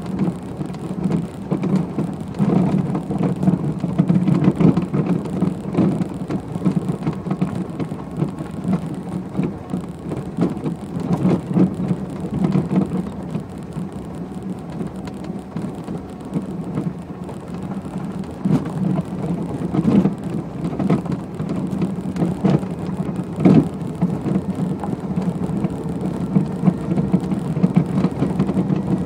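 Electric-converted Renault 9 driving over a rough dirt road: a steady rumble of tyres and road with occasional sharp knocks from the car's noisy suspension, and no engine sound.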